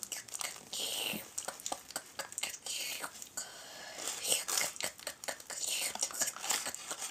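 Quick light clicks and rustles of small handmade props being handled, with a few breathy whispers between them.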